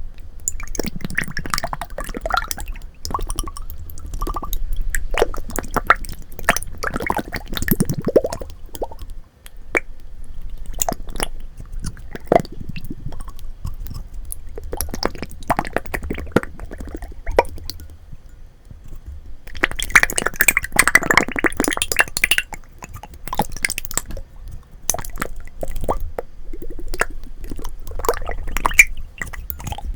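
Slime being squeezed and poked by hand: wet squishing with many small sharp clicks and pops as air pockets burst. It comes in irregular bursts, densest and loudest about two-thirds of the way through.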